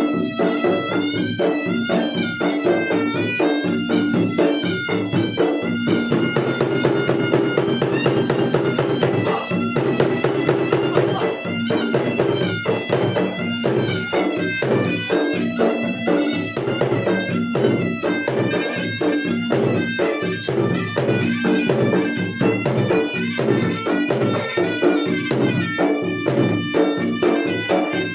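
Traditional Makassar gendang ensemble playing: the drums beat fast, dense strokes under a shrill reed pipe, the pui-pui, which carries a wavering, ornamented melody.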